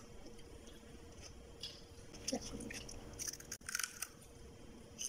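A person biting and chewing food, faint crisp crunching clicks coming in small clusters.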